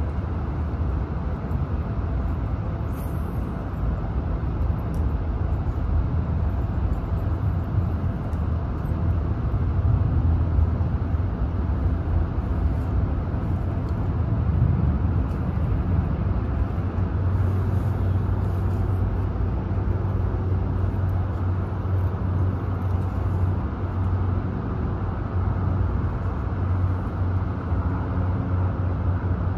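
Steady low outdoor rumble, strongest in the deep bass, with no distinct events standing out.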